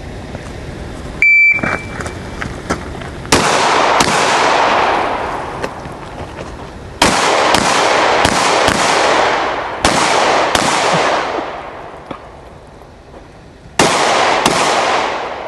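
A shot timer beeps once, about a second in, and a pistol then fires about ten shots, mostly in quick pairs with pauses between, each ringing out in a long echo.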